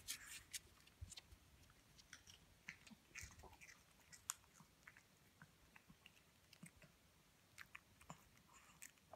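Pekingese dog chewing a treat: faint, irregular crunches and clicks of its teeth.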